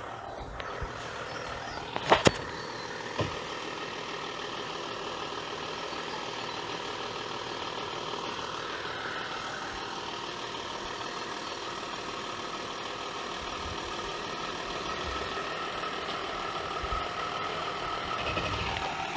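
VW Touareg engine running steadily during slow off-road driving on a muddy track, with two sharp knocks about two seconds in and a lighter one shortly after.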